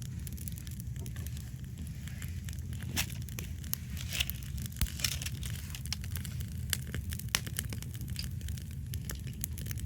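Wood campfire crackling: scattered sharp pops over a steady low rumble, the pops thickest in the middle, with a brief rustle around the middle.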